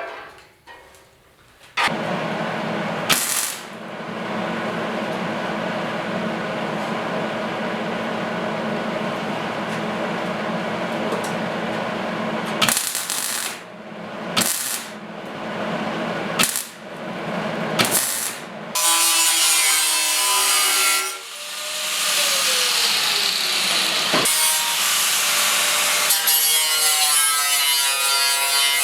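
Welder laying a steady bead, then several short tack bursts, as a steel patch goes onto a running board. Then a grinder with a cut-off wheel whines as it cuts off the excess, spinning down once and starting again near the end.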